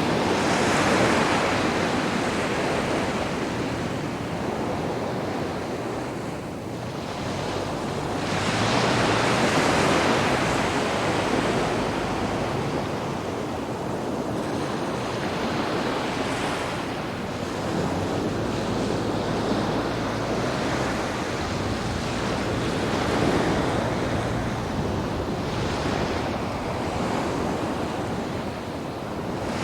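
Sea waves breaking and washing up a sandy beach, a steady surf that swells and fades every several seconds, with the loudest washes about a second in and around ten seconds in.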